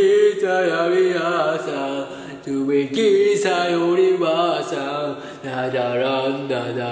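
A man singing in long held notes that slide up and down in pitch, chant-like rather than spoken.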